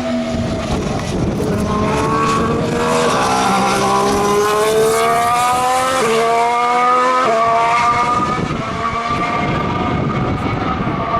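2014 Formula One car's 1.6-litre turbocharged V6 hybrid engine accelerating on track, its note climbing through the gears with two sharp drops at upshifts partway through, then settling into a steadier note.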